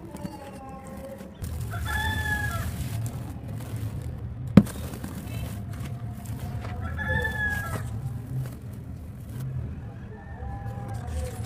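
Short pitched animal calls, four of them a few seconds apart, with one sharp snap near the middle and a low rumble underneath.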